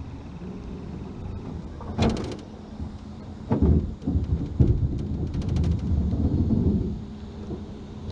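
Low rumbling thumps, loudest in the middle of the stretch, while a spinning reel is cranked to bring a fish in. Twice there is a short run of rapid clicking from the reel.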